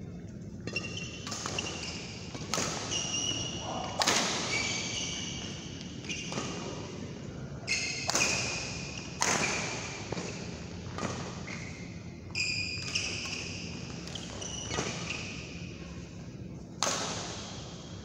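Badminton rackets striking the shuttlecock in a rally, a dozen or so sharp cracks at uneven intervals, echoing in a large hall, with short high squeaks of shoes on the court mat between the hits.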